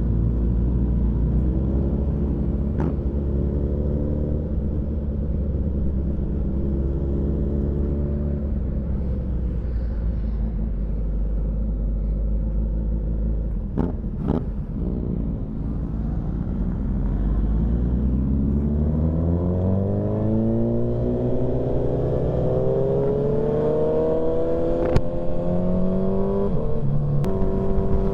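Motorcycle engine running steadily at low revs, then accelerating from about halfway through, its pitch rising steadily, with what sounds like a gear change near the end.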